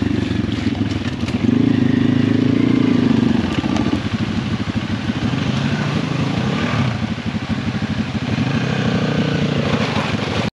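Small single-cylinder dirt bike engines running on a trail, throttle opening with a rise in pitch about a second and a half in. After about four seconds the engine settles into a lower, choppier note as a bike is ridden slowly through a shallow creek.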